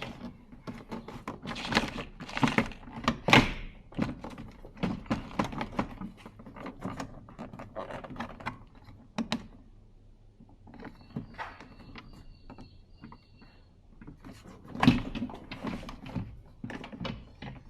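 Plastic clicks and knocks of a Toyota Hilux door trim panel being worked off its clips and handled, in quick irregular strokes for the first ten seconds, then a heavier thunk about fifteen seconds in.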